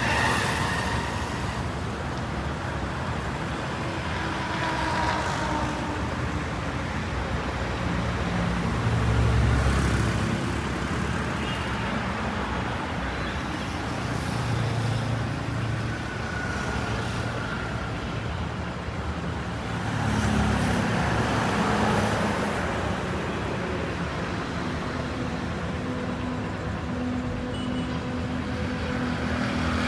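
Road traffic: motor vehicles running and passing, with louder engine passes about nine, fifteen and twenty-one seconds in.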